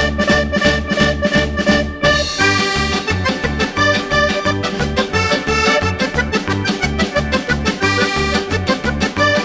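Upbeat background music with a steady bass beat; the arrangement changes about two seconds in.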